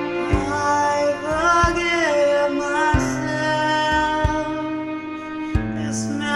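Background pop song: a sung melody gliding over sustained chords, with a slow drum beat about every second and a quarter.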